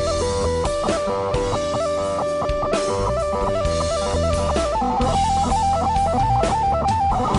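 Stratocaster-style electric guitar playing a fast lead line of rapid trilled notes, stepping up to a higher phrase about five seconds in, over a backing of drums.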